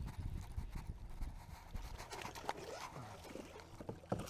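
A baitcasting reel being cranked to bring a hooked bass to a kayak, with scattered clicks and knocks of rod and gear handling against the plastic hull over a low steady rumble of wind on the microphone.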